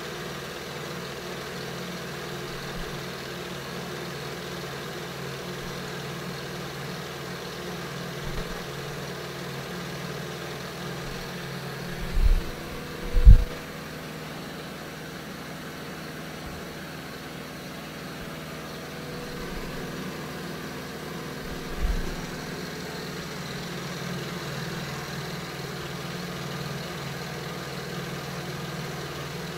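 Milling machine running steadily while the table feeds through a side-to-side cutting pass in a slot. A few dull low thumps stand out: two close together about halfway through, the second the loudest, and a weaker one later.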